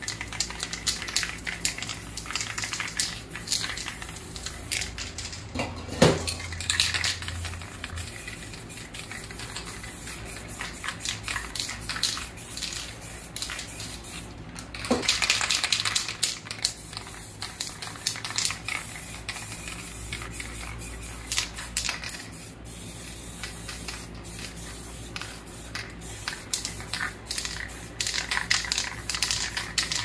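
Aerosol spray-paint cans hissing in repeated bursts as paint is sprayed onto the board, with many sharp metallic clinks and knocks from the cans being handled.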